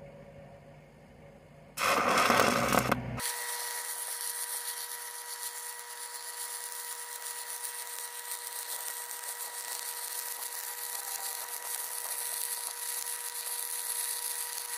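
Stick-welding arc running a downhill cap pass on steel pipe with a 5 mm rod: a short loud crackle as the rod is struck about two seconds in, then a steady sizzling crackle with a constant whine that stops just before the end.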